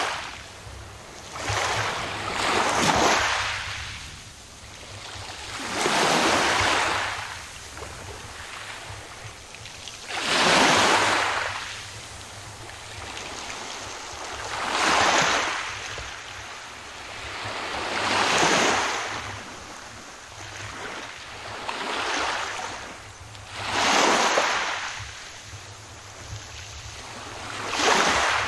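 Small waves lapping onto a pebble beach. Each wave comes as a hissing wash that swells and fades, about every three to four seconds, eight times over.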